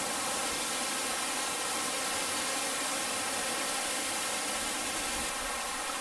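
Rushing water of a waterfall, a steady even hiss.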